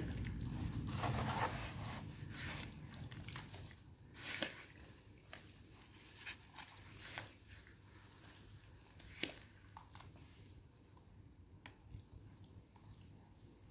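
Wet sandy mud squelching and crunching as a muddy boot is pushed and pressed through it. The sound is busiest in the first couple of seconds, then thins to scattered soft clicks and squishes.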